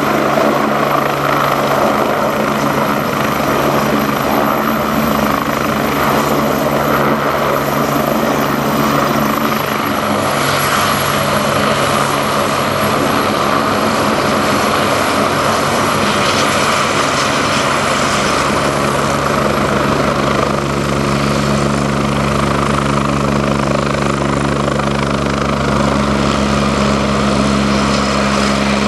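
Agusta A109E Power twin-turbine helicopter running close by as it sets down and moves off on its wheels. Steady rotor and turbine noise with a high turbine whine that drops slightly in pitch about ten seconds in.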